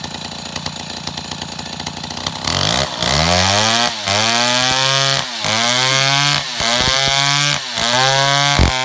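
Two-stroke chainsaw cutting into a log. It runs steadily at a lower speed for a couple of seconds, then opens up to full throttle about two and a half seconds in. After that the engine speed dips briefly about once a second and climbs straight back up.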